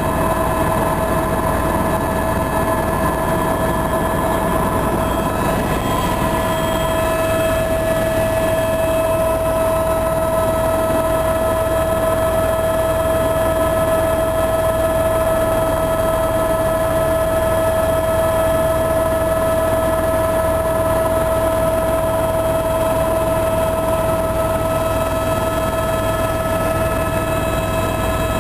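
Helicopter in flight, heard from inside the cabin: a steady drone with a constant whine over it.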